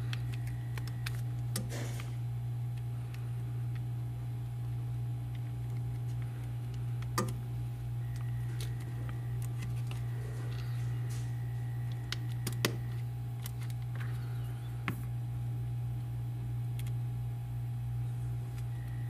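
Small, sharp plastic clicks and taps, a few seconds apart, from handling a Samsung Galaxy S5's replacement display and its flex-cable connector against the phone's frame, over a steady low electrical hum.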